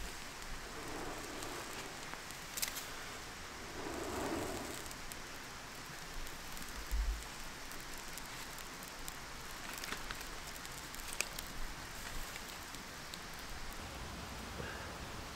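A smouldering bundle of dry bracken tinder being blown into flame and set into a fire lay. Two soft blowing breaths come in the first few seconds, over a steady hiss with a few scattered small crackles and pops.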